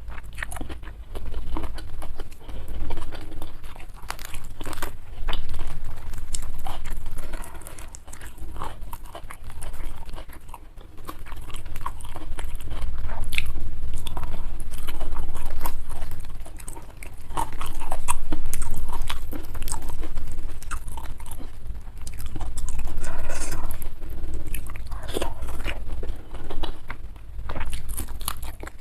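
Close-miked chewing and crunching, a person eating a meal of fried carp and rice, with many small crackling bites coming in pulses every second or two.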